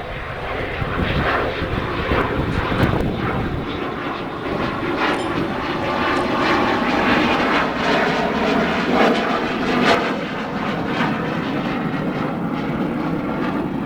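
An aircraft flying by, its engine noise steady and fairly loud.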